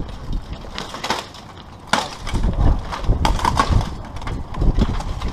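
Steel armour clanking and weapons striking armour as two armoured fighters trade blows and grapple: an irregular run of sharp metallic clanks over heavy thuds.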